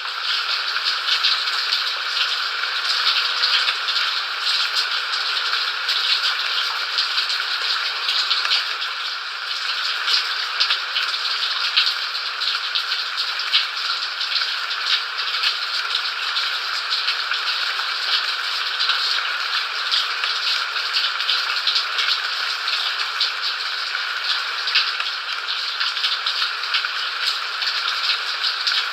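Steady rain falling, an even hiss of countless small drop impacts with no thunder and no deep rumble.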